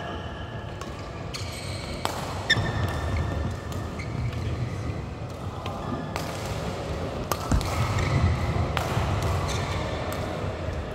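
Badminton rally: rackets striking the shuttlecock with sharp irregular clicks, and a brief shoe squeak on the court about two and a half seconds in. Footfalls thud on the court floor throughout.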